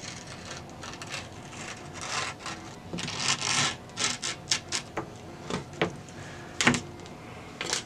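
Scraps of grip tape rubbed along the edges of a wooden fingerboard deck, a series of short rough scrapes, the loudest near the end. This sands down the grip tape's edges so it does not peel.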